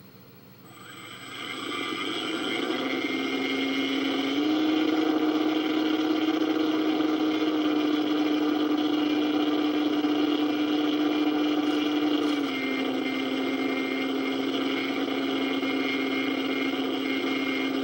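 RC model plane's motor running at a steady throttle under a haze of hiss, starting about a second in. Its pitch steps up a few seconds in and drops back down about twelve seconds in, following the throttle.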